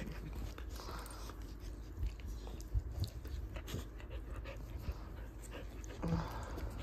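Border collie puppy and cockapoo play-wrestling: scattered scuffling and mouthing noises, with a short dog vocal sound about six seconds in.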